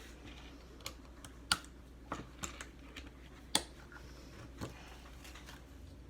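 Plastic LEGO pieces clicking as they are handled and pressed together: about half a dozen sharp, irregular clicks.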